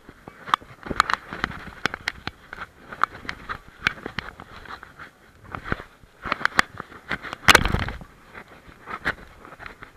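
Handling noise from a camera carried on a German shepherd's back as it walks a stony path: irregular clicks and scrapes of the mount and fur against the microphone, several a second. About seven and a half seconds in comes a louder rush of noise lasting about half a second.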